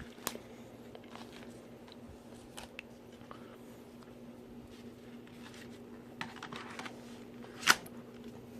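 Small plastic clicks and handling noises as the DJI Phantom 3 Standard's flight battery is fitted into the drone body, with one sharper, louder click near the end.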